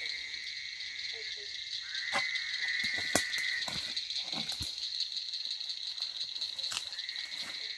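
Night chorus of insects and frogs: a steady high-pitched trilling, with a lower trill that drops out near the middle and comes back near the end. A few sharp clicks sound over it.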